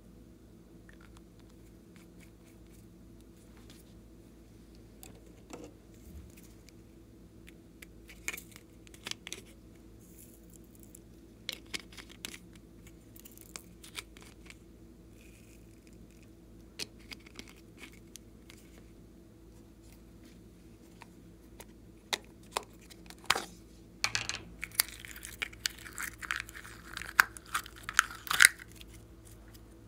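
Scattered clicks and taps of small plastic bottles and containers being handled. In the last several seconds comes a denser run of sticky crackling as purple glitter slime is pushed out of a plastic tub.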